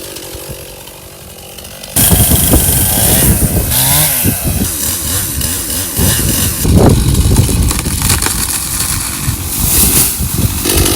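Chainsaw cutting into a coconut palm trunk. The first couple of seconds are quieter, then it gets suddenly loud about two seconds in, with the engine note rising and falling as the saw works.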